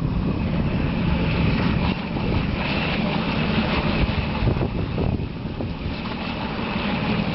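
Wind buffeting the microphone as a low, steady rumble, over the thin high whine of an electric RC speedboat's motor running fast across the water; the whine swells about three seconds in and again near the end.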